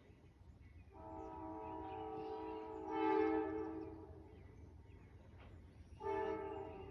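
Train horn sounding a long blast of several steady notes together from about a second in, swelling louder near its end, then a short blast near the end.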